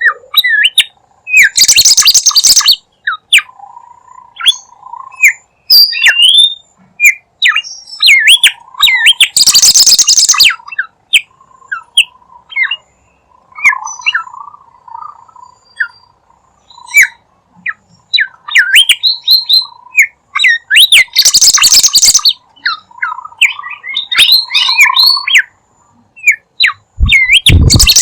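A bimoli bird singing without pause, used as a bird-lure call: a rapid string of short, sliding high chirps, broken four times by loud harsh raspy bursts, over a softer warble.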